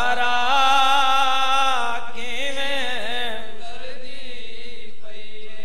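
Men chanting a noha, drawing out long held notes with a wavering pitch, then a second note that bends and falls.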